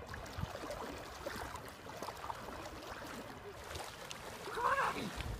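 Water splashing and sloshing as a person wades through shallow lake water, with a short pitched call that bends up and down about four and a half seconds in.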